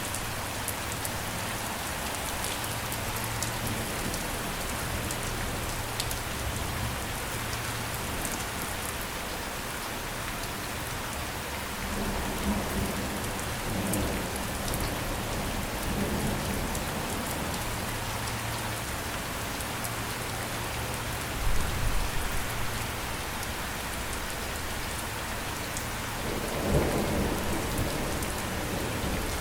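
Steady rain falling, with scattered drip ticks over an even hiss. Thunder rumbles low and swells twice, with a louder clap a little past the middle.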